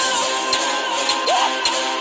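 Pop dance track with sustained synth chords and a soft beat ticking about twice a second, and a brief rising glide about one and a half seconds in.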